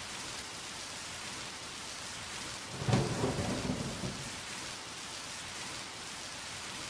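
Steady heavy rain, with a single thunderclap about three seconds in whose low rumble dies away over the next second or so.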